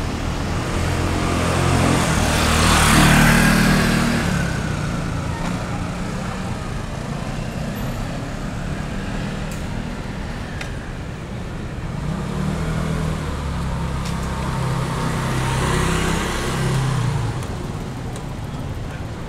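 Street traffic with two motor vehicles passing close by, one about three seconds in and another around sixteen seconds in. Each pass is an engine note with tyre hiss that rises and fades, over a steady background traffic hum.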